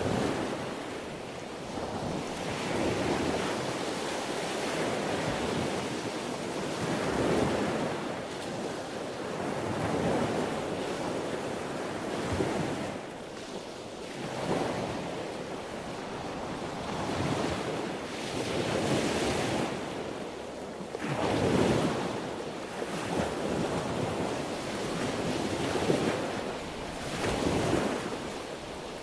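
Sea waves breaking and washing onto the shore in steady succession, each one swelling and falling away every few seconds, with some wind.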